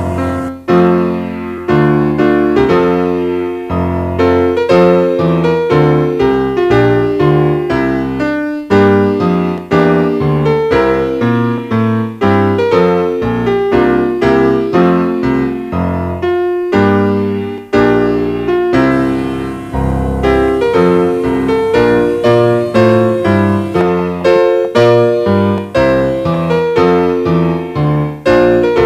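Background piano music, a continuous run of quick notes.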